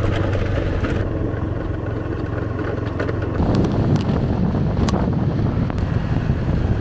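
Motorcycle engine humming steadily under heavy wind buffeting on the microphone while riding along a road; the wind rumble grows louder about halfway through.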